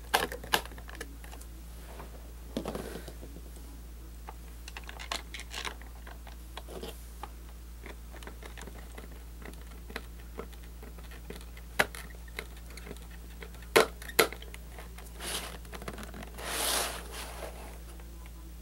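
Small screwdriver turning screws into a plastic VHS cassette shell: scattered light plastic clicks and ticks, a few sharper clicks in the second half, and brief rustles of hands handling the cassette. A steady low hum runs underneath.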